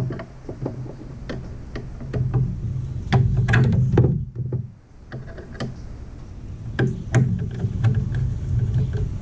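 Scattered light clicks and taps of hands and a tool working the wiring inside a metal electrical panel box, over a steady low rumble.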